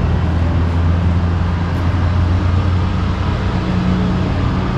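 Road and engine noise inside a moving car's cabin: a steady low drone with tyre hiss above it.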